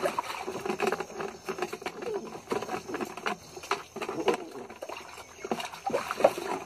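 Water splashing and dripping in a plastic bucket as handfuls of wet leaves are scooped and rubbed over a dog's coat, with scattered sharp splashes and knocks. The dog gives faint, short whines now and then.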